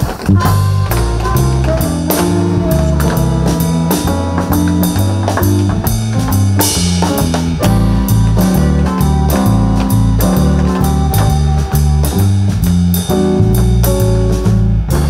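Live band playing an instrumental passage: drum kit keeping a steady beat under a bass line that steps from note to note, with guitar, piano and horns.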